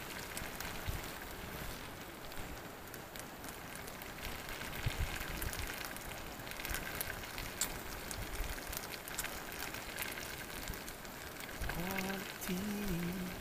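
Small campfire of twigs and sticks burning, crackling with scattered sharp pops over a steady hiss. A person's voice sounds briefly near the end.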